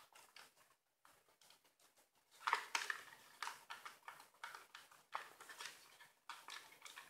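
Plastic body of a Viltrox JY680A speedlight squeezed and twisted in the hands: faint rubbing and a run of light clicks from about two and a half seconds in. This is a flex test for creaking seams, and no creak stands out.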